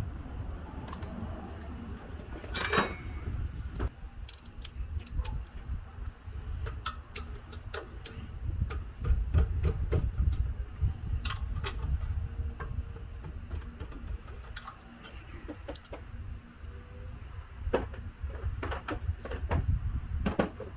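Scattered light clicks and metallic clinks of tools and parts being handled, with a short hiss about three seconds in, over a steady low rumble.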